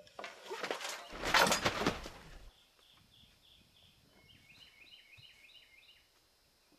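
Loud rustling and thudding of a person climbing out over a log wall and dropping into dry grass and leaves, lasting about two and a half seconds. After that, a bird sings runs of short, repeated down-slurred whistled notes, several a second.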